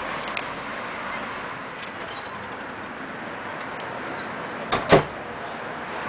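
A steady noisy background, with two sharp knocks close together near the end, the second louder.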